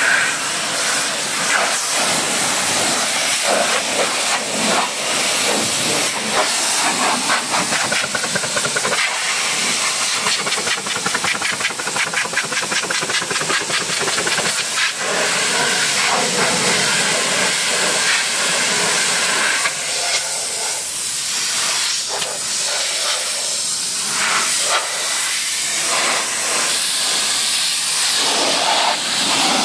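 Pressure washer lance spraying a steady hissing jet of water against a car's lower doors and sill.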